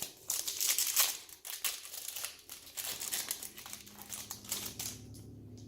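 Trading card pack wrapper being opened and handled, a dense run of crinkling and crackling that dies away about five seconds in.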